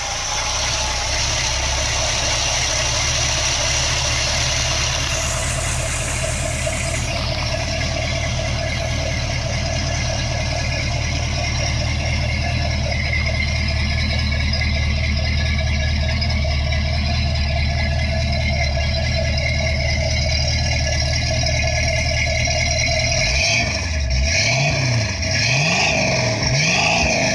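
Ford 302 cubic-inch V8 with a Flowmaster exhaust idling steadily just after a start, then blipped a few times near the end, the pitch rising and falling with each rev.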